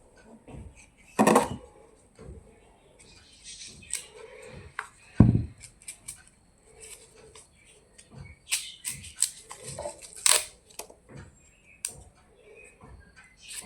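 Kitchen handling sounds while an onion is prepared: scattered clicks, knocks and short rustles, with one heavier thump about five seconds in.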